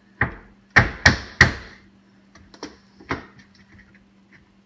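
Knocks and thumps of a drywall sheet being levered up with a hatchet wedged under its bottom edge and pressed into place against the wall: a sharp knock, then three loud ones in quick succession about a second in, then a couple of softer knocks.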